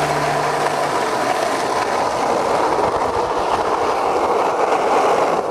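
Skateboard wheels rolling over rough asphalt, a steady loud rolling noise.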